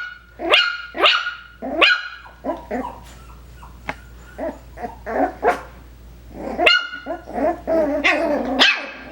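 Coton de Tulear puppies about five weeks old yapping in short, high-pitched barks, one after another. The loudest come in the first two seconds and again from about two-thirds of the way in, with softer little yips in between.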